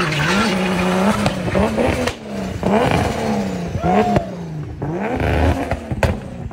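Turbocharged BMW E36's M50 straight-six engine revving up and down in repeated throttle blips. There are sharp cracks about two, four and six seconds in.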